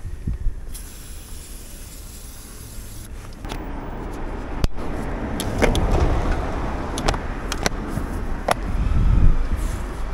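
Aerosol chain lube sprayed onto a motorcycle chain in one hiss of about two seconds, starting about a second in. Then a low rumble builds and peaks near the end, with several sharp clicks and knocks as the plastic top case is handled.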